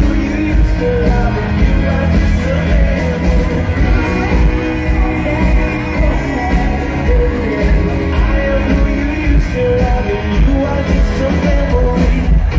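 Live band playing amplified music with a singer and a steady, heavy drum beat, heard through the big PA from far back in an open-air concert crowd.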